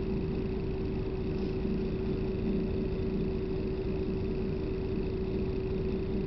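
Steady interior noise of a moving bus: a low rumble of engine and road with one constant hum over it, unchanging throughout.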